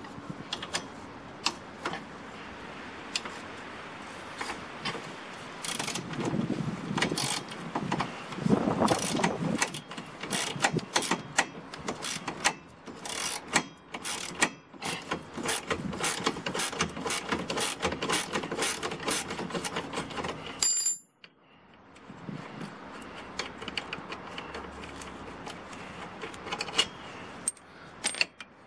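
Socket ratchet clicking in quick, irregular runs as a bolt is undone, with a spanner holding the nut; the clicking breaks off briefly about two-thirds of the way through, then carries on.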